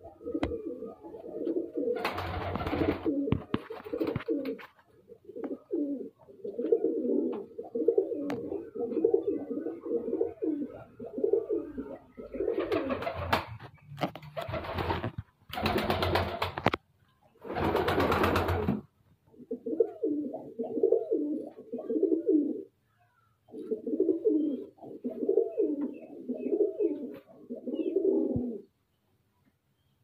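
Domestic pigeons cooing over and over, a steady run of low, pulsing coos. Several short, louder rustling bursts break in, the longest near the middle and another about two seconds in.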